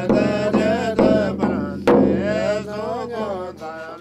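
A voice chanting a mantra in long tones that bend up and down, over a steady low hum, with a sharp knock about two seconds in.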